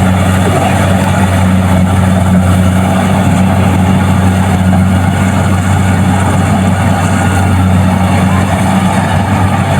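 Kubota DC-70 Plus combine harvester's diesel engine running steadily at a constant speed, a loud, even low drone.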